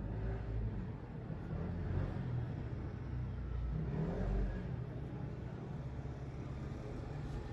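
A low engine rumble that swells and rises in pitch about four seconds in, then settles.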